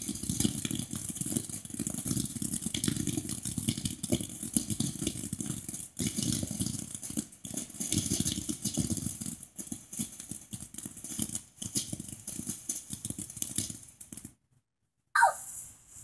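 Ground fountain firework spraying sparks, a dense rapid crackling that cuts off suddenly about fourteen seconds in as the fountain burns out. Just after, one short loud sound falls in pitch.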